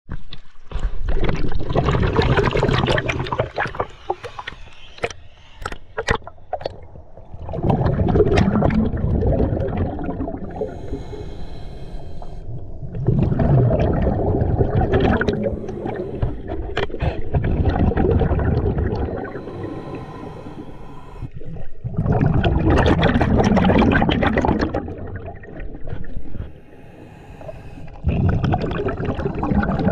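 Scuba regulator breathing heard underwater: loud bubbling exhalations of two to three seconds each, coming about every five to six seconds, with quieter gaps between breaths.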